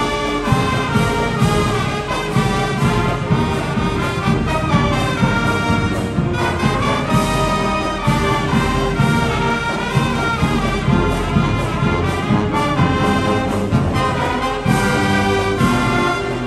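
High school marching band playing, a full brass section carrying the tune over a steady drum beat.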